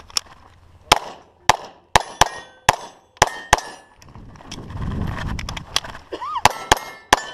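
Glock 34 Gen4 9mm pistol fired in fast strings at steel plate targets: about eight shots in the first three and a half seconds, a pause of about two seconds, then four more near the end. Hits on the steel plates ring faintly after some of the shots.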